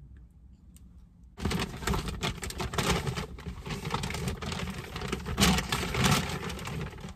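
A shopping bag rustling and crinkling as a hand rummages in it, starting about a second and a half in and going on in quick irregular crackles.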